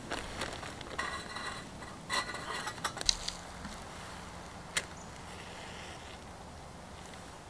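Twigs being handled and fed into a small folding metal twig stove, with a clear plastic bag crinkling: a handful of sharp clicks and rustles in the first three seconds and one more click near five seconds, then only faint background.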